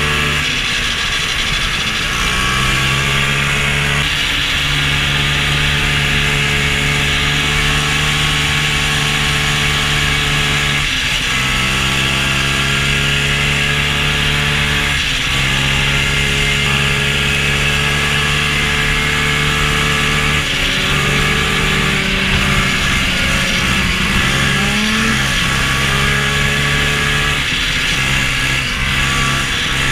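Old snowmobile engine running at a steady cruising speed, the throttle eased off and opened again several times, with a steady hiss of the sled moving over the snow.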